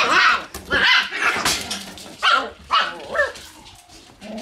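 Shiba Inu puppies barking, a string of about six short, quick barks, with fewer in the last second.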